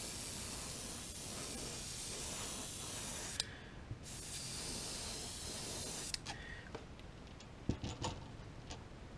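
Airbrush spraying paint in two steady hissing passes: the first runs about three and a half seconds, then after a half-second break a second pass of about two seconds. After the spraying stops come a few light clicks and taps.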